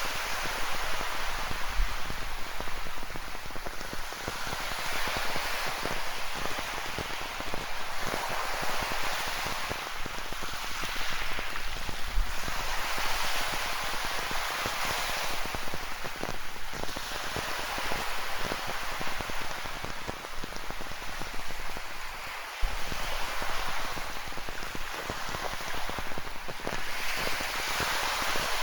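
Rain falling with ocean waves surging and washing on a rocky shore: a steady hiss of water that swells every few seconds, with fine crackling of raindrops throughout.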